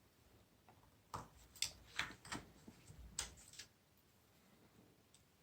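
Several faint, sharp clicks and ticks, bunched together about a second in and over the next couple of seconds, from needle-nose pliers gripping and bending paper-clip wire.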